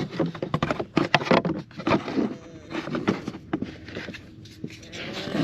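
Irregular clicks and knocks of a screwdriver and plastic trim being handled while the Phillips-head bolts under the dash are worked loose.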